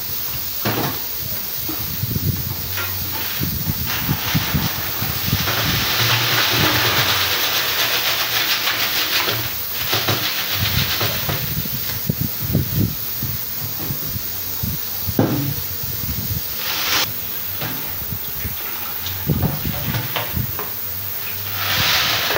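Water pouring and splashing as a stainless-steel cylinder is rinsed and emptied of dark sludge into a plastic bucket. The rushing pour comes in spells: a long one a few seconds in, a short one in the middle and one near the end. In between, the metal cylinder knocks and clunks as it is tipped and handled.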